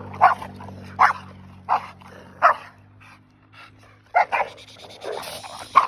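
Pit bull-type dog barking excitedly during tug play: about seven short, sharp barks at uneven gaps, two of them close together about four seconds in.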